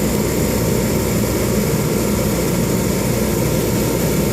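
Steady, loud low mechanical drone of running machinery, without change or distinct knocks.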